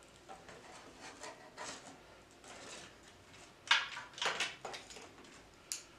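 Handling noises from work on the printer's wiring: scattered light rustles and clicks of cables and plastic parts, with a louder cluster about four seconds in and a sharp click near the end.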